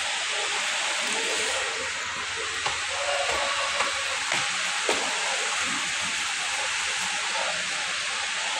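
A steady, even hiss, with a few light taps near the middle.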